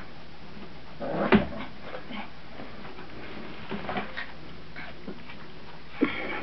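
Young Brittany puppies, about a month old, playing and tussling, with short whimpers and yips; the loudest comes about a second in, and a sharp yip with a brief high whine near the end.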